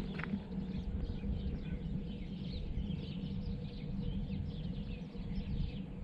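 Small birds chirping in a quick run of short, falling calls over a steady low rumble.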